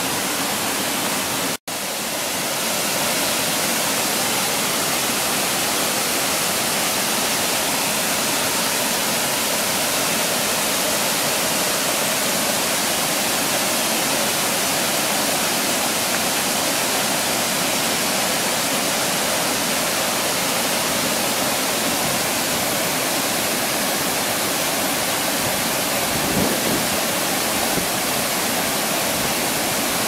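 River water rushing over rapids and a small rocky fall: a steady, dense hiss of flowing water. It cuts out for an instant about a second and a half in.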